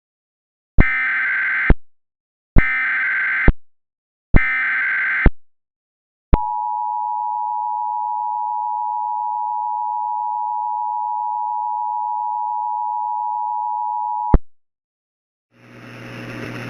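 Emergency Alert System SAME header: three bursts of digital data tone about a second each, followed by the EAS two-tone attention signal held steady for about eight seconds. A steady noisy hum starts just before the end.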